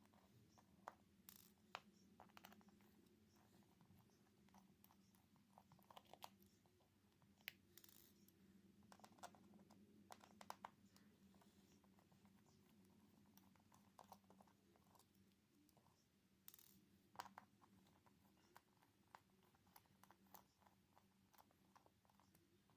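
Faint, scattered small clicks and scratches of a small Phillips screwdriver working screws out of a phone's frame and the tiny screws being handled. A low steady hum sits underneath.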